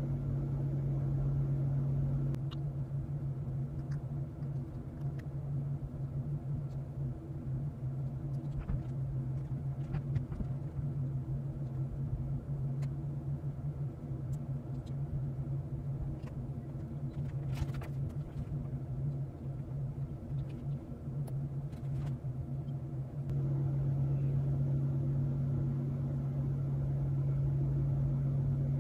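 A steady low machine hum with a couple of fainter overtones. About two seconds in, the sound switches to 20× fast-forward and turns into a rougher, choppy rumble with scattered faint clicks. It goes back to the plain steady hum a few seconds before the end.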